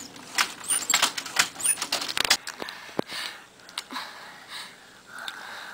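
Children scrambling into a hiding place: a quick flurry of scuffling taps and knocks with two short high squeaks in the first couple of seconds, then softer rustling and shuffling.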